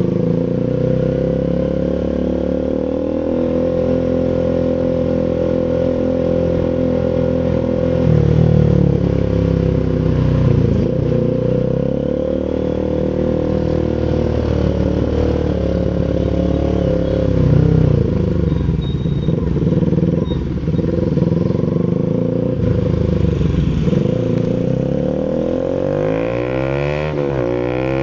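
Rouser RS200 single-cylinder engine running through an SC Project full aftermarket exhaust, its pitch holding steady for stretches and shifting up and down several times, with rising sweeps near the end as the revs climb.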